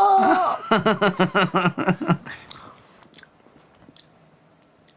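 A man's voiced mouth sound effect: a falling tone, then a sputtering raspberry in rapid pulses, about six or seven a second, that dies away about two seconds in. After that there are only faint, scattered clicks and crunches of crackers being picked up and chewed.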